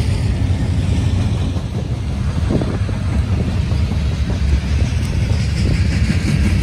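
Freight train rolling past close by: a steady low rumble of diesel locomotives and of wheels on the rails.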